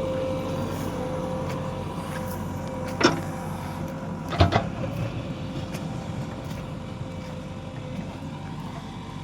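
Diesel engine of a JCB 3DX backhoe loader running steadily while it works. Sharp knocks come about three seconds in, then a quick double knock about a second and a half later.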